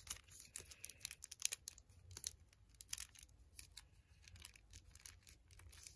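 Faint, intermittent crinkling and rustling of thin plastic as a trading card in its clear plastic wrapper is handled and slid into a card sleeve, with small scattered crackles.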